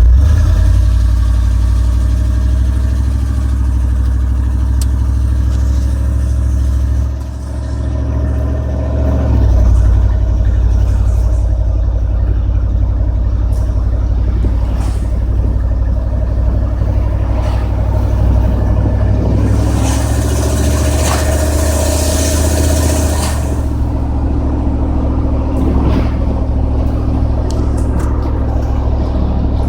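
A 1994 GMC Sierra 3500's 5.7-litre V8 engine running steadily under way, a heavy low rumble, in a truck whose automatic transmission will not shift up. The engine note falls away briefly about seven seconds in and comes back strongly a couple of seconds later. A rushing noise swells for a few seconds about two-thirds of the way through.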